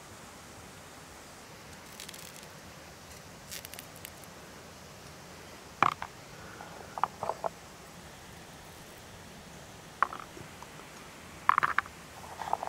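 Raw chestnuts being picked up and set down in wooden bowls: a few scattered light knocks and clicks. Near the end comes a quick run of clicks as a knife is put to the chestnuts on a wooden board.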